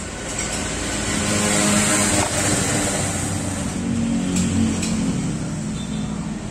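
A motor vehicle's engine running, growing louder over the first two seconds and then holding steady.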